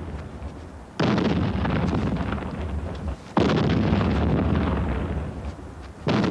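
Artillery shells exploding in the distance. There are three blasts: about a second in, again after about three and a half seconds, and once more near the end. Each one rumbles on for a couple of seconds as it fades.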